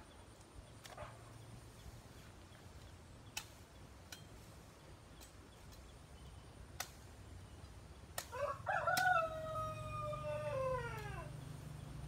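A rooster crowing once, about eight seconds in: a long call that holds its pitch and then falls away at the end. A few sharp clicks come before it.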